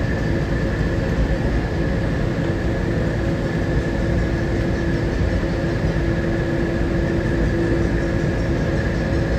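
Newark AirTrain monorail car running between stations, heard from inside: a steady rumble with a constant low hum and a higher whine held on one pitch.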